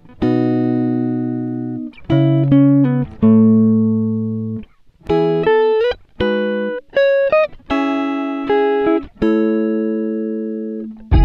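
Instrumental background music: a plucked-string melody of single notes, each struck and then ringing away.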